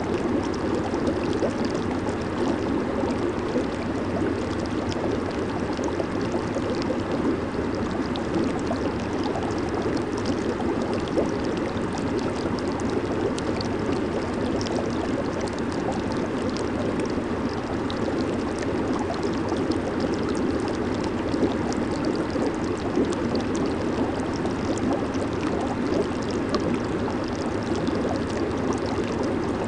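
Hot tub water churning and bubbling from its jets, a steady, unbroken rush with fine bubbling crackle above it.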